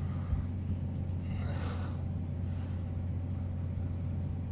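A steady low hum, with one short, sharp breath from a man straining about a second and a half in.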